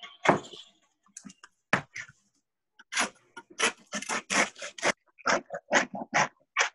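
Bread knife sawing through the crust of a freshly baked whole wheat sourdough loaf: a run of quick sawing strokes, about four to five a second, from about three seconds in. It follows a few scattered knocks as the loaf and board are handled.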